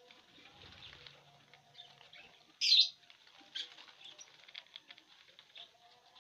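Fischer's lovebirds tearing at dry corn husk: a run of small crackling rustles and rips of the husk, with one short, loud, shrill chirp about two and a half seconds in and a smaller one about a second later.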